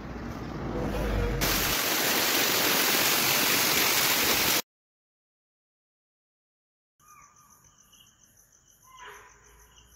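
A loud, even rushing hiss for about four and a half seconds that cuts off abruptly. After a couple of seconds of dead silence, crickets chirp faintly in a steady, evenly pulsing rhythm.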